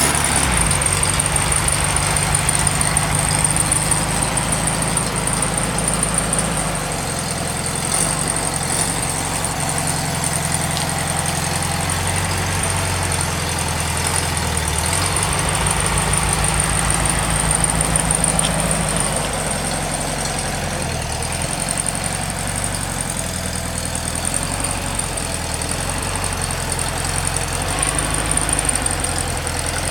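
VW Beetle's air-cooled flat-four engine, said to be a 1600 single-port, running just after a cold start on its automatic choke, with the car moving slowly. The engine speed shifts up and down a little several times.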